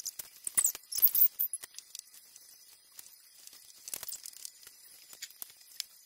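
LEGO bricks and plastic being handled on a tabletop: crinkling and sharp little clicks, loudest from about half a second to a second and a half in, with another short run of light clicks around four seconds in.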